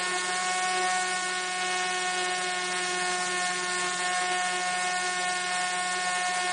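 Parrot Disco drone's electric motor and propeller whining at a steady pitch in cruise, with a rush of airflow over it, heard from the camera mounted on the airframe.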